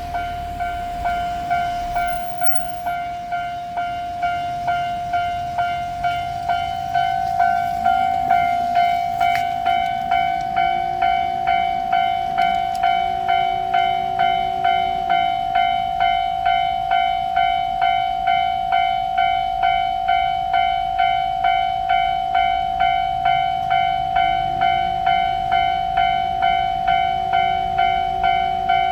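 Japanese railroad crossing warning bell ringing its repeated 'kan-kan' at just under two strikes a second, growing louder about eight seconds in.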